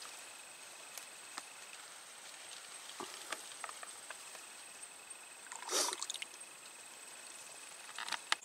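Insects keeping up a steady high-pitched drone, with scattered small clicks and a short, louder scuffle about six seconds in.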